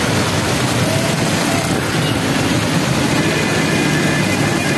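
Heavy monsoon rain pouring down, a steady dense hiss, with road traffic passing through the wet street beneath it.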